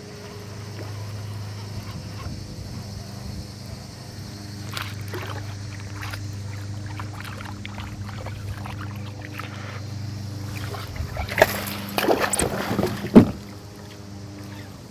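Knocks and clatter of gear on a fishing kayak over a steady low hum. A loud cluster of knocks comes about eleven to thirteen seconds in.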